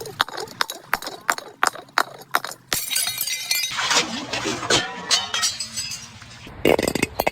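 Glass bottles knocking, clinking and breaking: a quick run of sharp clinks, then a ringing clatter of shattering glass and shards, and a heavier crash near the end.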